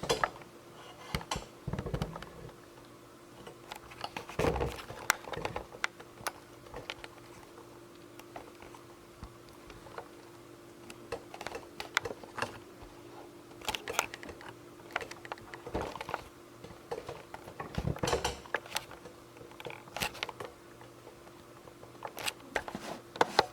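Irregular sharp clicks and taps, some in quick clusters, over a faint steady hum.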